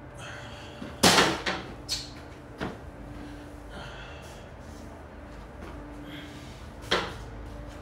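Several sharp knocks and clatters, the loudest about a second in, a few smaller ones just after and another near the end, over a low steady hum.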